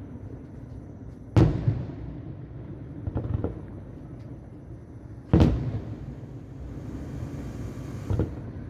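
Fireworks bursting at a distance: two loud booms about four seconds apart, each trailing off, with smaller bangs between them and near the end, and a high crackling hiss shortly before the end.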